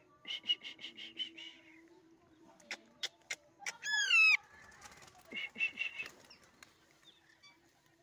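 Young Alexandrine parakeet calling while being hand-fed chickpeas. There is a quick run of about eight short squawks, a few sharp clicks, one loud drawn-out squawk that wavers and falls in pitch, and then another brief run of short calls.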